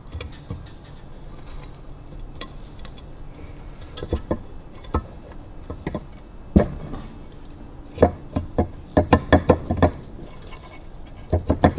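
Metal engine crankcase halves clinking and knocking on a workbench as they are handled and fitted together, with scattered single knocks and then a run of quick taps in the second half.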